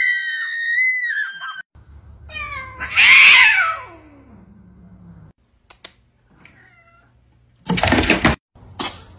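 Cats yowling: a long held cry at the start, then a loud screeching yowl about three seconds in that slides down in pitch. A short, loud burst of noise comes near the end.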